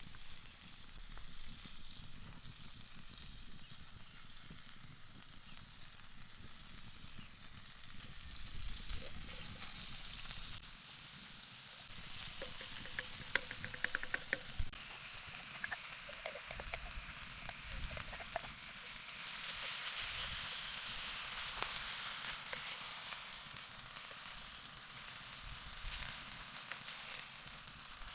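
Grützwurst frying in a pan over a campfire, sizzling steadily. The sizzle grows louder about twelve seconds in and again a few seconds later, with a few light clicks along the way.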